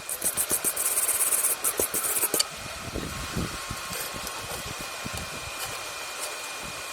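Stick welding arc crackling and sizzling, with rapid irregular pops and a bright hiss for the first two and a half seconds, then a steadier, quieter hiss with a faint steady high whine.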